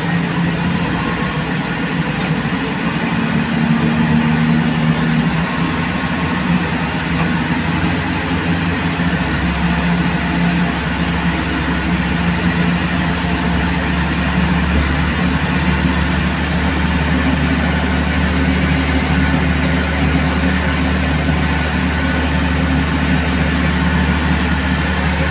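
Aircraft pushback tug's engine running steadily under load as it pushes a Boeing 777-300ER back by a towbar on the nose gear. The low drone deepens and grows stronger about nine seconds in.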